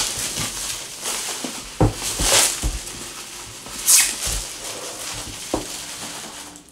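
Clear plastic bag crinkling and rustling as a cardboard laptop box is slid out of it, in a few swishes, with several light knocks of the box against the table.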